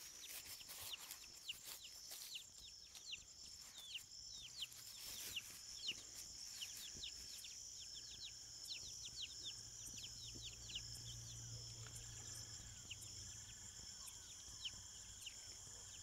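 Chicks peeping, many short falling peeps in quick succession, over a steady high insect drone. From about six seconds in a fainter, lower call repeats at even intervals.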